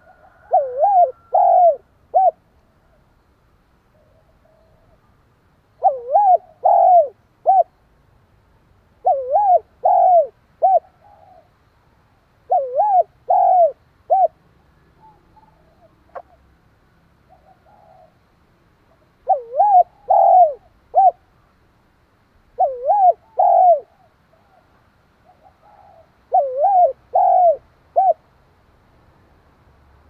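Spotted dove cooing its song, a decoy bird calling to draw wild doves: seven phrases of three or four coos, each phrase a few seconds apart, with softer coos in between. A single sharp click about halfway through.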